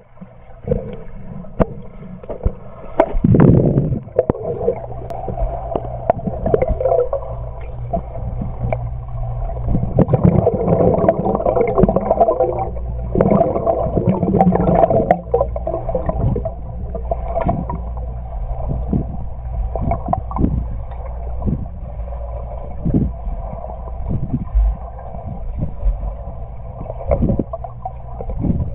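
Underwater sound in a swimming pool heard from beneath the surface: a muffled, continuous rumble of moving water with gurgling and scattered clicks and knocks. It swells into louder churning about three seconds in and again for several seconds in the middle, as a swimmer moves close by.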